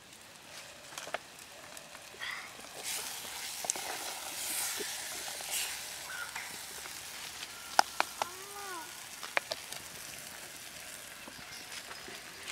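Vegetables sizzling in a pot over a wood fire while a wooden spoon stirs them, scraping against the pot. A few sharp knocks stand out about eight and nine seconds in.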